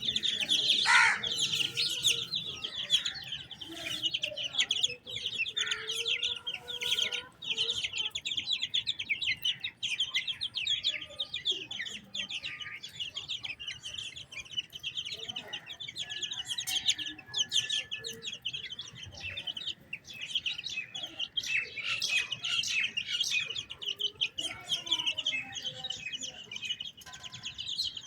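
A brood of chicks peeping rapidly and continuously in high, overlapping chirps, with an Aseel hen clucking lower now and then.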